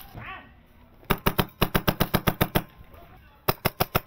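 Wolverine MTW HPA airsoft rifle firing in rapid full-auto bursts, about nine shots a second: a burst of about a second and a half, a short pause, then another burst near the end.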